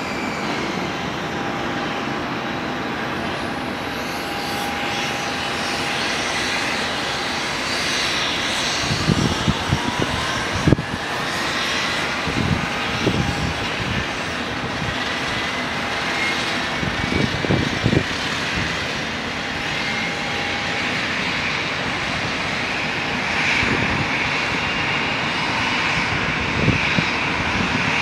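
Airliner jet engine running with a steady rush. About ten seconds in, a thin whine starts to climb slowly and steadily in pitch to the end, as the engine spools up. Scattered low thumps come in short clusters in the middle.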